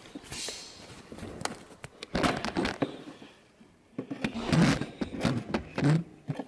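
Hands working the corrugated rubber boot of the door wiring harness loose between the door and the pillar: irregular clicks, knocks and rubbing of rubber and plastic, busiest about two seconds in and again past the middle.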